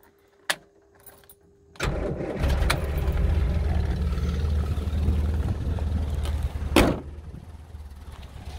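1977 Land Rover Series 3 engine being started on the key: a key click, then about two seconds in the engine catches suddenly and settles into a steady idle. Near the end there is a loud knock, after which the engine sounds quieter.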